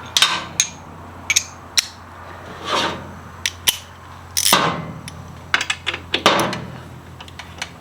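Metal hand tools clinking and scraping as a 9/16 wrench or socket loosens the exhaust bracket bolt, with several sharp clicks and a few short scrapes. The bolt is loose and comes off easily.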